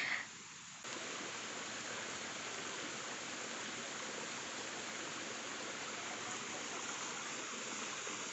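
Steady rush of running water from a mountain stream. It sets in about a second in and holds even.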